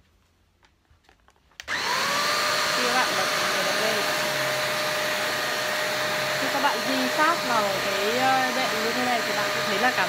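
Hoover MBC500UV handheld UV mattress vacuum switched on about a second and a half in, its motor spinning up with a rising whine, then running with a steady high whir as suction and the rotating brush roll work.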